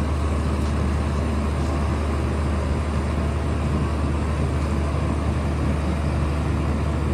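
Rubber-tyred gantry crane running, a steady low mechanical drone with no change in pitch or level.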